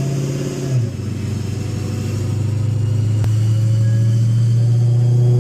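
Whipple 3.8-litre supercharged Hellcat V8 running steadily on the dyno between pulls, a low, even hum that drops slightly in pitch about a second in and then holds.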